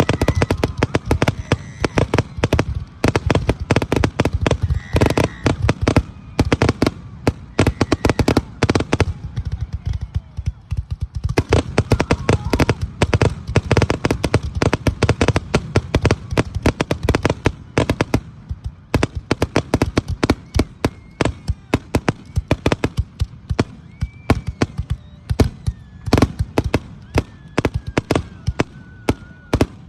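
Fireworks display: a dense barrage of shell bursts and crackling, many bangs a second over a deep rumble, easing briefly around ten seconds in.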